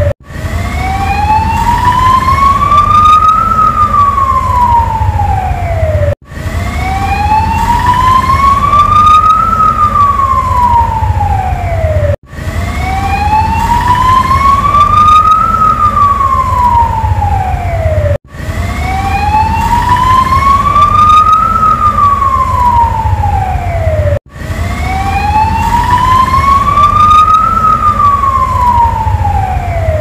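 Ambulance siren in a slow wail, each cycle rising in pitch for about three seconds and falling for about three, five times over, with a brief cut-off between cycles. A low rumble runs underneath.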